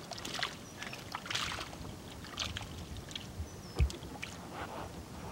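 Handling noise on a fishing boat: scattered light clicks and knocks of gear, with one loud dull thump against the deck about four seconds in.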